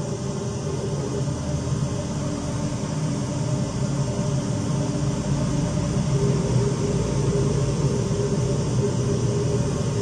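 Steady test noise, an even hiss-like rush, played through a 3-way speaker box while the tuning software measures its delay and frequency response.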